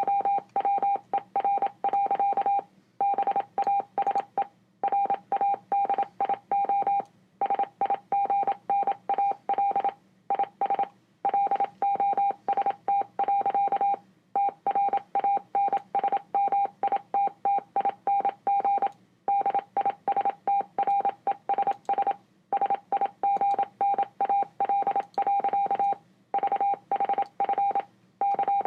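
Morse code played through speakers: one steady mid-pitched beep keyed rapidly on and off in dots and dashes, with short pauses between groups.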